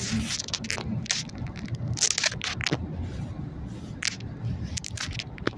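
Low road rumble inside a moving car, with irregular clicks and crackles over it.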